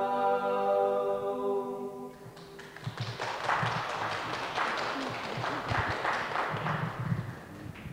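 Singers and guitars hold the last chord of a gospel song, which dies away about two seconds in; then an audience claps in scattered applause for about five seconds.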